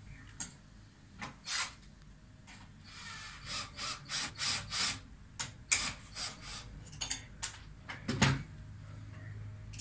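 Hand work with a tool: a run of short scraping strokes and sharp clicks at irregular intervals, thickest in the middle, with one heavier thump near the end.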